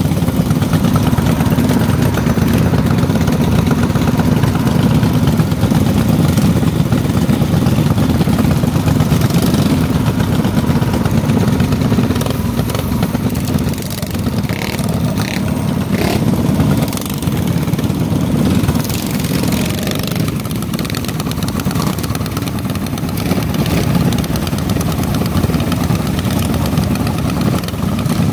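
Minibike engine running steadily, with a couple of brief dips in level partway through.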